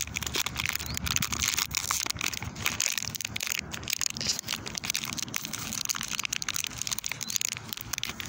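Crinkly wrapper or packaging being handled and rummaged through: a continuous crackling rustle with many small sharp clicks.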